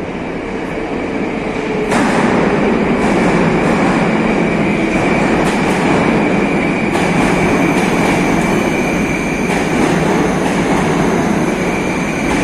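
Moscow Metro train pulling in alongside the platform: a loud steady rumble of wheels on rails with a high whine, stepping up in loudness about two seconds in.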